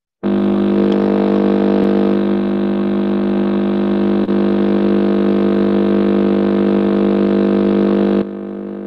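Loud, steady electronic drone made of several held tones at once. It cuts in abruptly and drops to a quieter level near the end.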